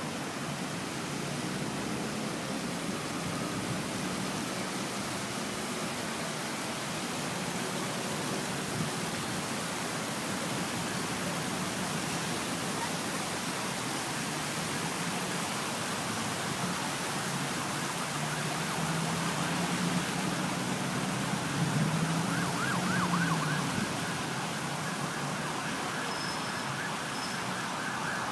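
Steady city road traffic: a constant wash of engines and tyres, with a nearer engine running louder around twenty seconds in. Near the end a warbling siren starts up.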